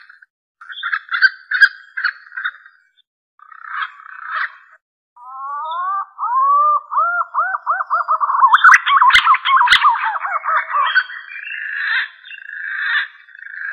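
Green pigeon (punai) calling, the whistled call used as a hunting lure: short warbling notes, then a long run of looping, rising-and-falling whistles that quicken and grow louder before breaking into a jumble, then more short notes. Two sharp clicks come near the middle.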